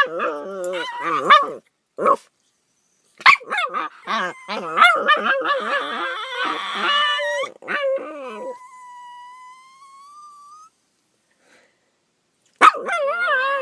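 Dogs howling and grumbling in long, wavering 'talking' calls that slide up and down in pitch, trailing off into a thin rising whine. After a short pause the calls start again near the end.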